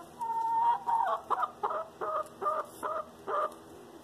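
A chicken calling: one drawn-out note, then a run of about eight short clucks at roughly three a second.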